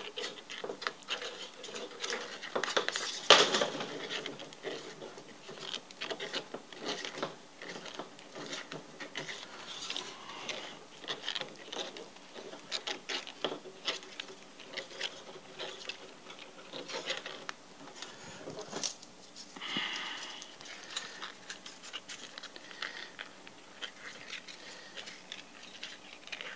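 Flat steel recoil spring of an upright fencing scoring reel being fed by hand back into its housing: irregular small metallic clicks, ticks and scraping rustles, with one sharper click about three seconds in.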